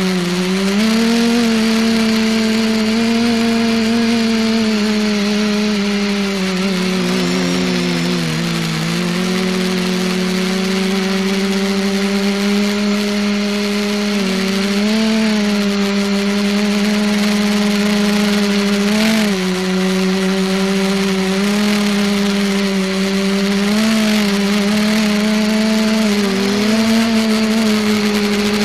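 Electric motors and propellers of the ETFD2 multicopter in flight, heard close up from the onboard keychain camera. They make a steady buzzing hum whose pitch wavers with small changes in motor speed and dips briefly about eight seconds in.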